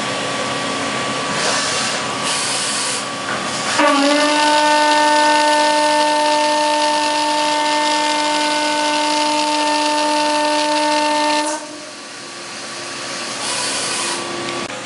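Makino PS95 CNC mill face-milling 6061 aluminum with a 2.5-inch indexable face mill at 3000 RPM, half an inch deep, with the spindle at 100% load. A steady pitched tone with overtones sets in about four seconds in, dipping slightly in pitch as the cutter bites, holds for about eight seconds and cuts off as the cutter leaves the work. Coolant spray hisses throughout.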